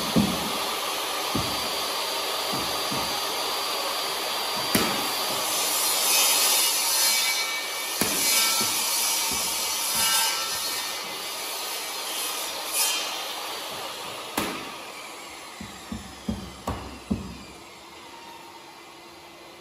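A steady power-tool whir with a few sharp knocks while laminate panels are being fixed to a wall; the whir fades near the end, where a quick run of five or six sharp knocks comes.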